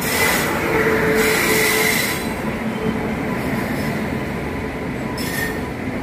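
A train moving along a station platform, its steel wheels squealing on the rails over the first two seconds, then a steady rail rumble.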